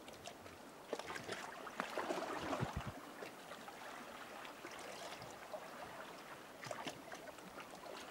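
Small waves lapping and trickling at the water's edge, an uneven run of splashes and drips that grows louder for about a second, a little under two seconds in.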